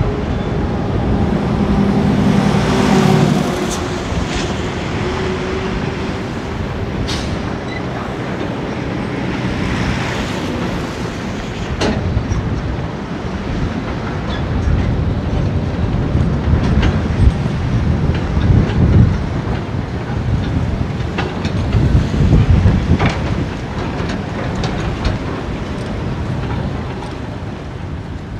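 A heavy diesel truck with a loaded trailer moving slowly, its engine running steadily with rattling and a few sharp metallic clanks from the rig.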